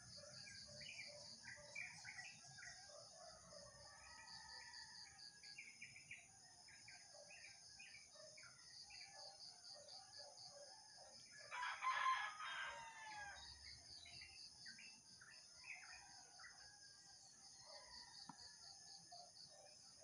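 A rooster crowing once, about twelve seconds in, the loudest sound here, over faint scattered bird chirps and a steady pulsing insect chorus.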